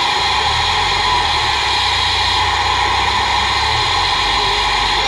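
Loud, steady rush of noise from a CB radio speaker, with a low hum underneath, changing abruptly near the end.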